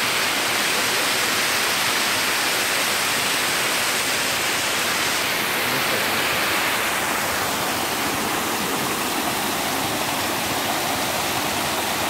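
Water rushing steadily over the stepped rock ledges of a cascading waterfall, an unbroken loud rush.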